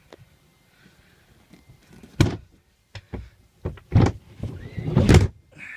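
Boat's pull-out bench seat being pushed and knocked back into place. Three heavy thunks about 2, 4 and 5 seconds in, the last one longer, with smaller knocks between them.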